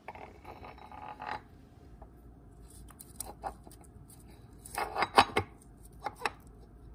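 Clutch pack of a Mitsubishi DCT470 dual-clutch transmission, its clutch discs and steel plates, being slid and turned by hand onto the splined shaft. A scraping slide at the start, then scattered metal clinks and rattles, with the loudest cluster about five seconds in.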